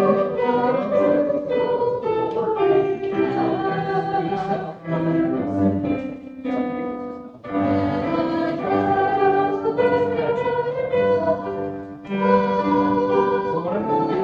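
A hymn sung by several voices with instrumental accompaniment, in sustained phrases with short breaks between them.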